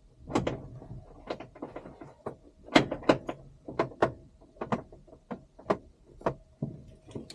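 A run of irregular clicks and knocks in and around a two-seat ASK 21 glider's cockpit, some louder near the middle. A faint steady electronic tone sounds underneath.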